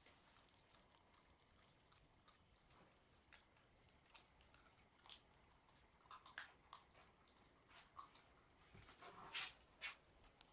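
Puppies chewing raw chicken on the bone: faint, scattered crunches and clicks of teeth on bone and cartilage, coming more often in the second half.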